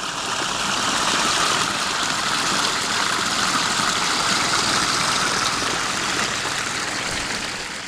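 Steady rush of water pouring down a small waterfall into a pond, running without a break.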